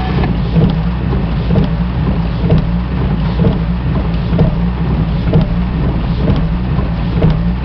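A vehicle engine running with a steady, loud low drone, with noise of motion over it.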